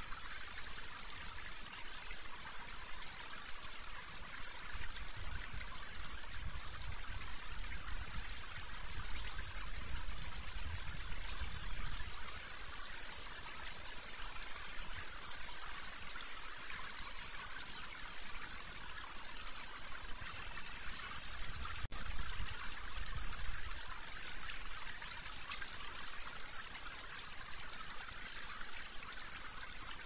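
Steady rushing of a stream or brook, with high, thin bird chirps in quick series now and then and a few short downward whistles.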